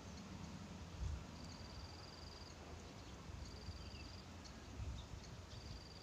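A high, even trill repeated about every two seconds, each lasting about a second, from a small calling animal, with a few short high chirps and a low rumble of wind.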